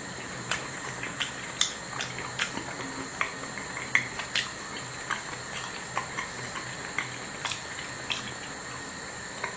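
Mushrooms frying in oil in a pan: a steady sizzling hiss with scattered sharp crackles and pops.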